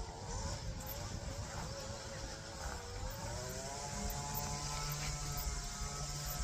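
A motor engine droning, its pitch sagging about three seconds in and then rising again, over a low rumble.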